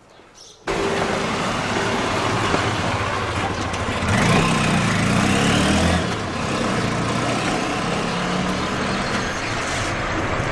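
Street traffic: motor vehicles running on a town road, starting suddenly under a second in. One vehicle passes louder between about four and six seconds in.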